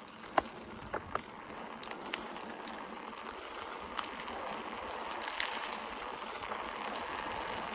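Insect trilling in a steady high-pitched tone, which stops about four seconds in and comes back faintly near the end, with a few faint clicks in the first second or so.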